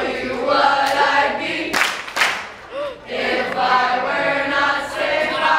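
A small group of voices singing a chant-like song together, unaccompanied.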